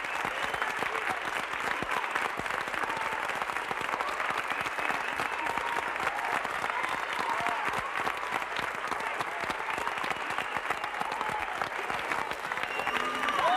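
An audience applauding steadily, a dense patter of many hands clapping.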